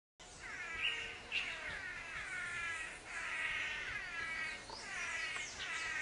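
Male Chiroxiphia manakins calling in three long runs of harsh, overlapping pitched notes, each run opening with falling notes; these are the calls given during their group courtship display on a branch.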